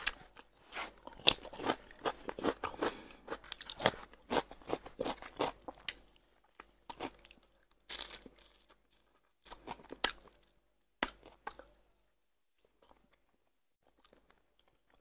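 A person chewing smoked fish close to the microphone: a dense run of chewing clicks and smacks for about six seconds, then scattered smacks, and little sound in the last few seconds.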